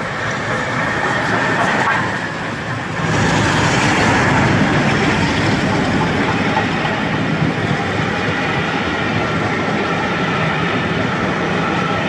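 Steam-and-diesel-hauled charter train passing slowly close by: the locomotives go by in the first couple of seconds, then the coaches' wheels rumble over the rails, louder from about three seconds in.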